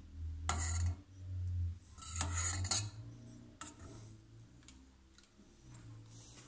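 Perforated metal skimmer clinking and scraping against the sides of a stainless steel pot while foam is skimmed off mandarin jelly, a handful of separate clinks, the loudest in the first three seconds.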